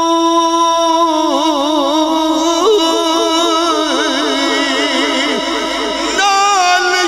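Solo male voice singing Punjabi Sufi kalam into a microphone. He holds one long note, then breaks into fast wavering ornaments that climb in pitch, and steps up to a higher note about six seconds in.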